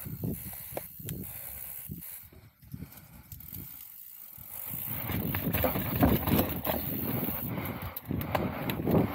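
Full-suspension mountain bike riding along a trail, with the bike rattling and knocking over the ground. It goes quieter for a couple of seconds about two seconds in, then picks up again.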